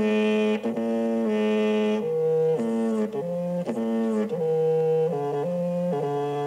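Music: a wind instrument playing a slow run of steady held notes, changing pitch about every half second.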